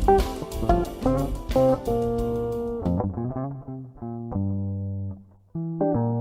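A 335 semi-hollow electric guitar played clean: quick picked single notes, then slower held chords and notes with a darker tone from about three seconds in, and a brief gap near the end before the chords resume.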